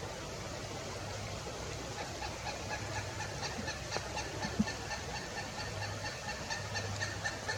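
Pileated woodpecker calling: a long, fast series of short, ringing notes that starts about two seconds in and grows louder, over a steady hiss of forest background.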